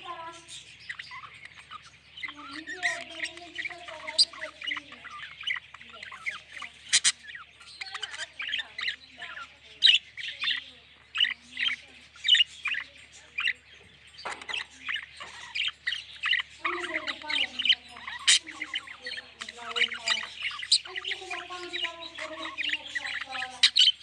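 Exhibition budgerigars chattering: a dense run of rapid chirps and squawks, with lower sliding warble notes at times.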